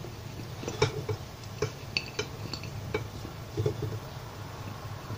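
Light, scattered clinks and taps of grapes being picked from a porcelain bowl and dropped into a juicer's feed chute, over a faint low hum.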